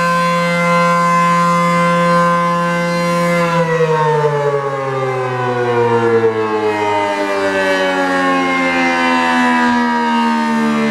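ACA P-10 outdoor warning siren sounding a steady tone that, about three and a half seconds in, begins to fall slowly in pitch and keeps falling.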